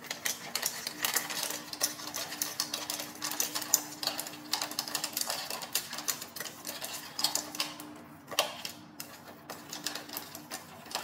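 Dry kibble dropping and clinking into a stainless steel bowl by the handful: a rapid, irregular patter of small clicks, with a couple of brief pauses.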